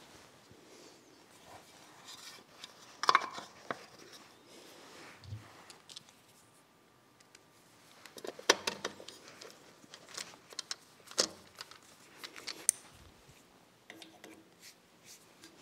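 Hand work on an electric motor's metal terminal box: scattered clicks, taps and scrapes of a screwdriver and the cover being handled and fastened. One sharp click comes about three seconds in and a cluster of clicks follows in the second half. The motor is not running.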